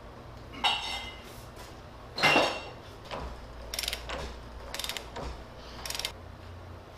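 Large ratchet wrench on a hydraulic cylinder's rod nut: two ringing metallic clanks, the louder one about two seconds in, then three short bursts of ratchet clicking as the wrench is swung back between pulls.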